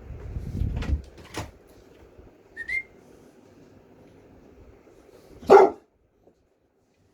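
Boxer dog giving one loud, short bark about five and a half seconds in. Before it come low rumbling and a couple of knocks in the first second and a half, and a brief high squeak near the three-second mark.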